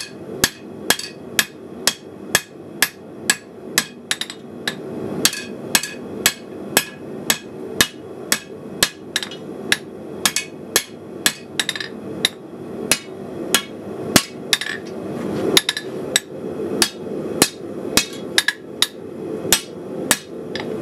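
Hand hammer striking hot steel on an anvil, forging a knife blade: sharp ringing blows at an even pace of about two to three a second, over a steady low rush.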